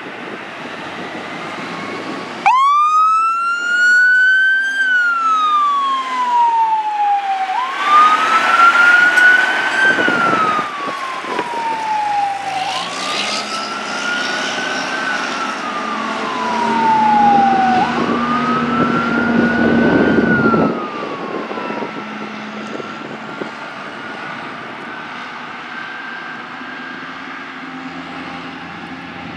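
Oshkosh Striker airport crash-rescue fire truck responding with its siren wailing: the siren starts a couple of seconds in and goes through four slow rise-and-fall cycles, each about two and a half seconds long, then stops, leaving the truck's engine and road noise fading as it drives away.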